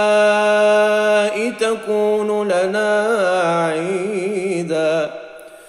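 A man reciting the Quran in melodic tajweed style, drawing out the end of a phrase. He holds one long steady note for about a second, then carries the vowel on through wavering ornamented turns before it trails off near the end.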